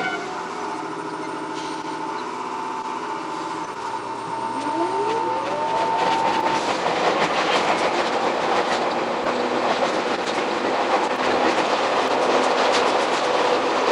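Electric commuter train, a Jomo Electric Railway 700 series, pulling away: a motor whine rises in pitch over about two seconds, then the wheels running on the rails grow louder and busier, with a rapid clatter.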